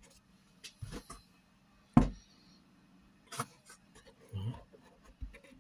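A few scattered knocks and taps from parts of a washing machine being handled, the loudest one about two seconds in.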